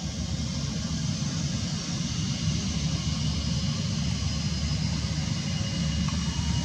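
Airbus A320-family airliner's twin turbofan engines running at low thrust as it rolls slowly along the runway: a steady low rumble with a hiss and a faint thin whine.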